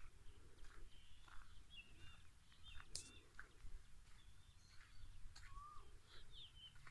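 Faint birdsong: many short chirps and twittering calls from several small birds, over a low steady rumble, with a sharp click about three seconds in.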